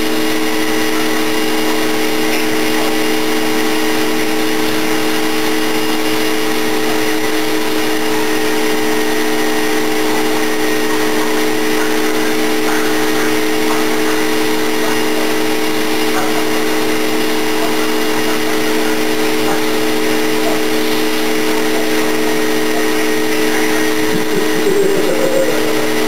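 Vacuum cleaner running steadily with its hose and nozzle held in the air, a constant, unchanging motor hum.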